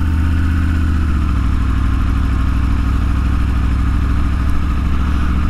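Motorcycle engine running steadily at low speed while riding, heard from on the bike.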